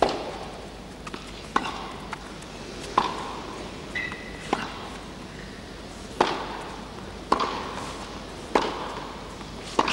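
Tennis rally on an indoor carpet court, opening with a serve: sharp racket strikes on the ball about every one to one and a half seconds, with fainter bounces between, each echoing briefly in the hall.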